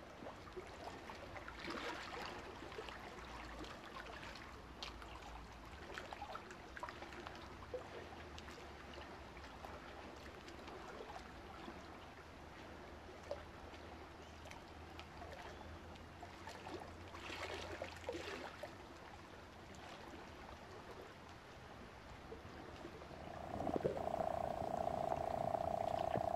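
Underwater reef ambience picked up by the camera: a steady fine crackle and hiss, broken twice by a brief louder rush of noise. Near the end a loud steady hum comes in and holds.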